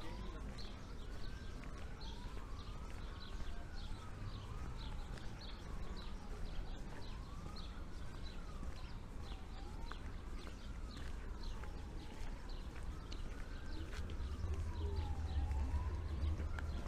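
An emergency vehicle's wailing siren, its pitch gliding up and down about every two and a half seconds, over a steady low street rumble that grows louder near the end. A regular light clacking runs along about twice a second.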